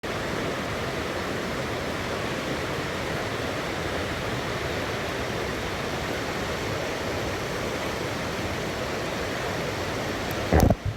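River water rushing steadily over rocks, an even hiss with no break. Just before the end it is cut by a brief loud bump.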